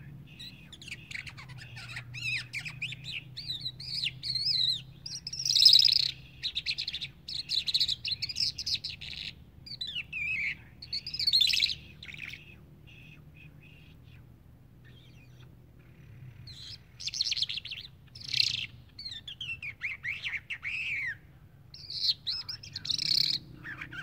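Caged songbird singing in bursts of rapid, varied chirps and warbled whistles. It pauses for a few seconds halfway through, then starts again.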